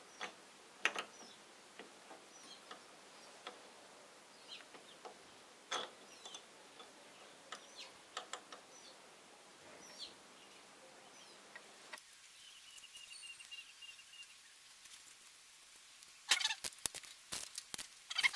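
Faint scattered bird calls, then near the end a quick run of sharp metallic clicks and clinks as wrenches work on the diesel injector and fuel-line nuts.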